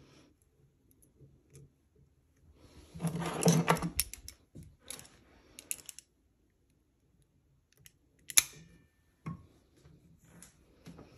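Heavy-gauge silver chain clicking and rattling, link against link, as it is handled and twisted by hand to form curb chain, one end held in a bench vise. A dense rattle about three seconds in, scattered small clicks after it, and a single sharp click past the middle.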